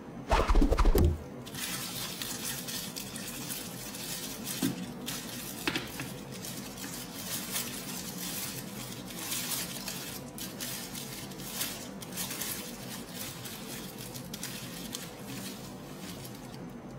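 Clear plastic wrapping crinkling and rustling as it is pulled off a leather handbag's handles and hang tag, with a brief loud handling bump about half a second in.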